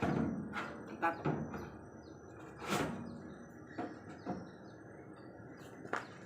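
A few scattered knocks and clunks, the loudest about three seconds in, over a quiet outdoor background with a faint steady high-pitched hum.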